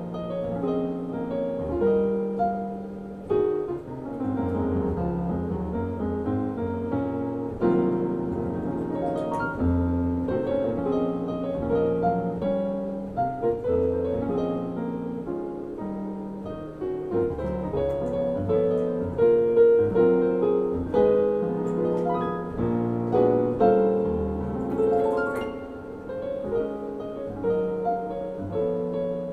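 A Yamaha grand piano played solo in a jazz style, a standard: continuous chords and a melody line over low bass notes.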